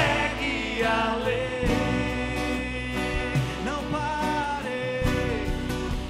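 Christian worship song performed live: a singer's voice gliding over a band with a steady bass line.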